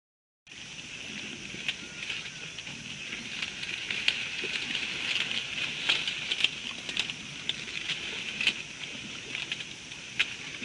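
Dry vegetation crackling and snapping irregularly as an African bush elephant feeds or moves through it, over a steady high hiss. The sound starts abruptly about half a second in.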